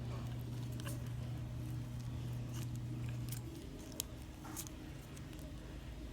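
Scattered light metallic clicks and handling noises, over a steady low hum that stops about three and a half seconds in.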